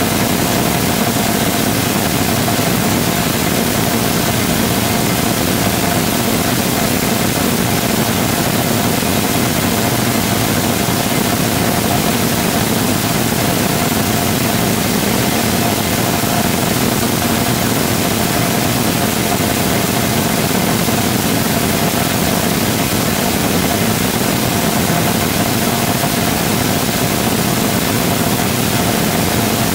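Full-scale 3D-printed rotating detonation rocket engine combustor firing steadily: a loud, unbroken rush of noise with a thin steady tone running through it.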